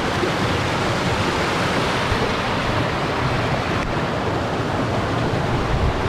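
Steady rush of flowing water, with wind buffeting the microphone in low gusts.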